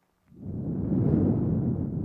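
A long nasal exhale blown right onto a binaural microphone. It is a breathy rush that starts about a quarter second in, swells, and is still going at the end.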